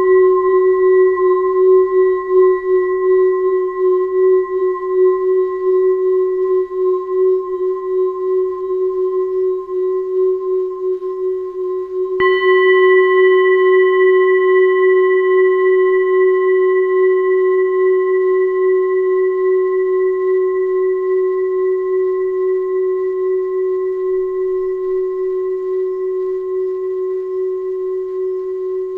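Singing bowl ringing with one steady low tone and higher overtones, its level pulsing and wavering. It is struck again about twelve seconds in, and the new ring slowly fades away.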